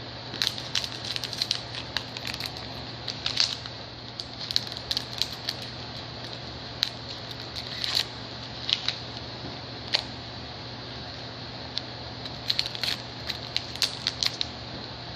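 Foil trading-card pack wrappers being cut open and handled: irregular crinkles and sharp snips and clicks, over a steady low hum.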